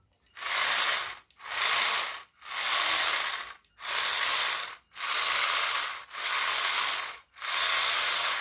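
Small electric motor in a 3D-printed RC car chassis spinning the printed drive gears in short throttle bursts, about one a second, each a rattling, gear-chattering run that stops abruptly. This is a first test of the motor through its ESC and radio.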